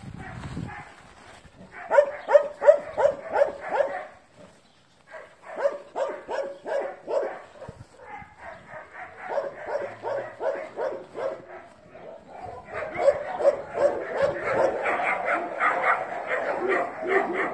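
Dogs barking in quick runs of short, high yaps, about four a second. They come in several bouts with short pauses and grow denser and louder near the end.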